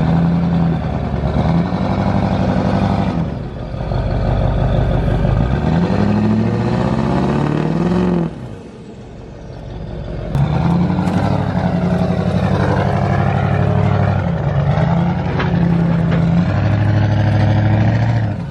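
Chevrolet Silverado's Duramax turbo-diesel V8 revving hard under load as it pulls on a tow chain. The pitch climbs from about five seconds in, drops off briefly past eight seconds, then the engine revs up again. It has the power but not the traction, so the tires spin.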